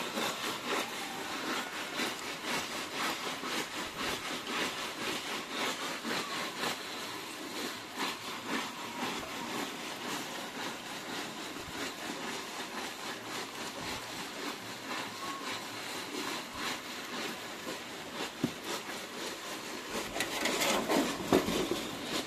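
Fish being scrubbed in sand and small gravel to strip off their scales: a continuous gritty rubbing and scraping, a little louder near the end.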